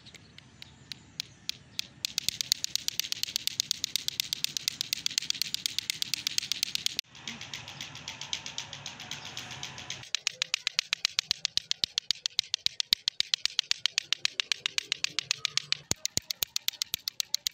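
Lato-lato clacker toy, two hard plastic balls on a string knocking together: a few spaced clacks that build at about two seconds into a fast, steady clacking of about seven a second.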